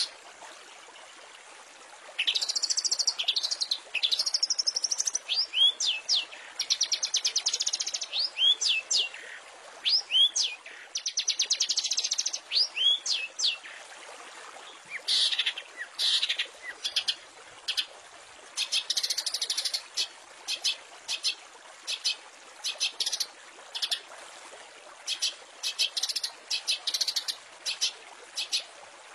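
Long-tailed shrike (cendet) singing a varied song in bursts with short pauses: arched and falling whistled notes, fast buzzy trills, and near the end quick runs of short sharp repeated notes, over a steady faint hiss.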